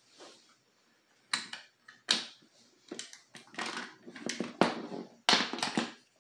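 Airsoft rifle being taken apart by hand: irregular clicks, knocks and rattles of its plastic and metal parts as the receivers are separated, loudest about five seconds in.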